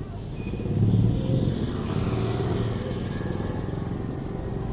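A motor vehicle on the street: a low engine rumble, with tyre hiss that swells and fades about two to three seconds in as it passes.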